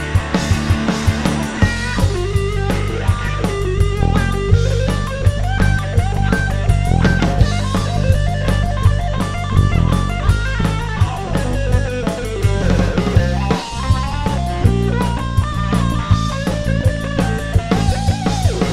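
Live rock band playing an instrumental break: electric guitar playing a bending lead line over bass and a steady drum-kit beat.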